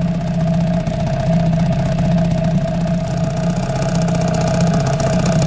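Small Yamaha 2 outboard motor running steadily, pushing the boat along the river; it picks up slightly in the first second, then holds an even note.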